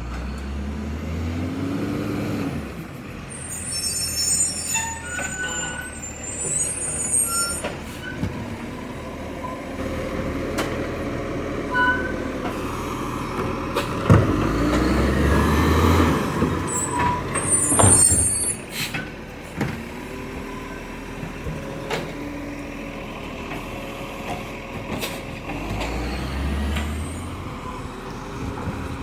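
Iveco Acco side-loader garbage truck collecting a recycling wheelie bin: the diesel engine runs and revs, with bursts of air hissing, while the hydraulic arm lifts and tips the bin. A sharp knock comes about halfway through, followed by the loudest clattering as the recyclables are dumped into the hopper, and the engine revs again as the truck pulls away near the end.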